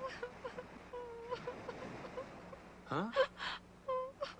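Soft, short high notes of background music, then about three seconds in a young woman starts sobbing: a rising gasping breath, breathy sobs and a brief whimper.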